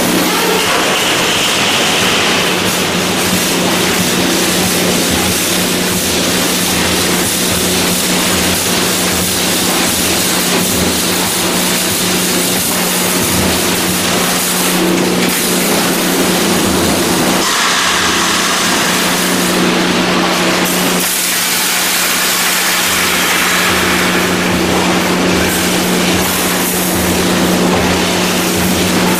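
Wire mesh welding machine running: a steady hum under continuous mechanical noise.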